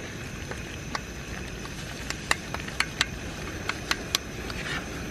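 Chopped tomatoes and onions sizzling in a small frying pan over a portable gas stove: a steady hiss with scattered sharp pops.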